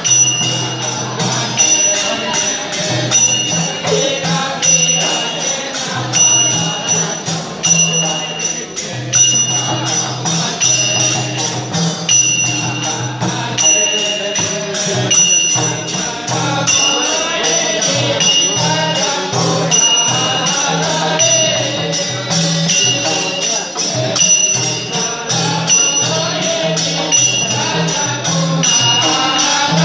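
Traditional Newar music for a Lakhe dance: a two-headed barrel drum beating in a steady rhythm while small brass hand cymbals ring on each beat, and a group of voices sings along, more strongly in the second half.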